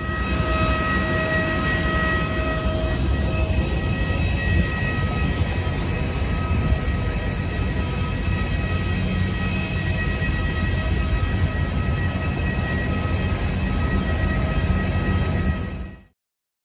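Steady rumble of aircraft turbine engines and ground equipment on the apron, with several high whining tones held at a constant pitch, cutting off suddenly near the end.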